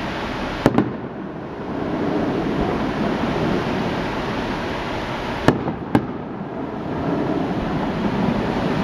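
Aerial firework shells bursting in the night sky: two sharp bangs close together under a second in, two more around five and a half and six seconds, with a steady rumble of noise between them.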